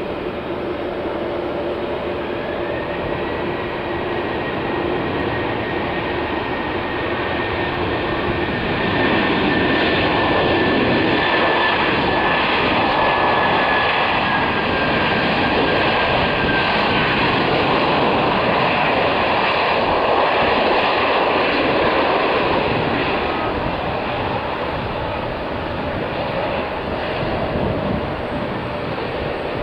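GE CF6-80E1 turbofans of an Airbus A330-300 on the landing rollout: a steady engine whine whose high tone slowly falls in pitch. About nine seconds in, the engines spool up into reverse thrust, a louder rushing noise that eases off some fourteen seconds later.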